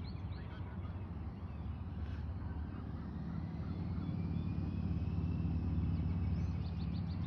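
Low, steady engine hum from a motor vehicle, growing louder over the middle seconds and easing slightly near the end. Birds chirp faintly at the start and again near the end.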